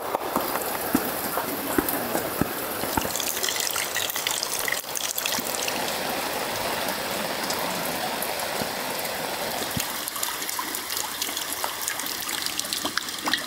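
Steady rain falling, a rushing hiss with scattered drips and taps.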